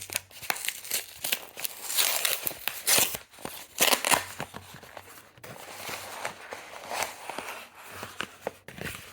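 Product packaging being opened and handled by hand: rustling, scraping and tearing noises with many small clicks and taps, loudest in short bursts about two and four seconds in.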